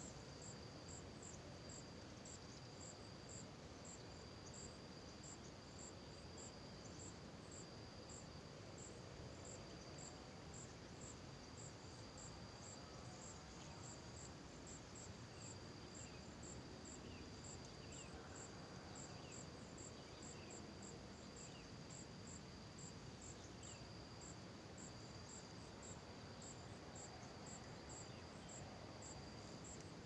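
Faint insects chirping: a steady high shrill with evenly spaced rapid pulses above it, a few per second, over a low background hiss. A few faint short chirps come and go around the middle.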